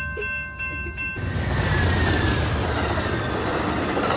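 Railroad crossing bell ringing in steady repeated strokes. About a second in, an Amtrak Surfliner passenger train passes close by at speed, a loud continuous rush of wheels on the rails that drowns out the bell.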